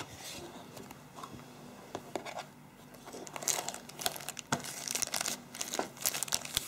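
Handling of a cardboard phone box and a phone sealed in a clear plastic bag: soft cardboard scuffs as the lid opens, then crinkling plastic that gets denser in the second half, with one sharp click partway through.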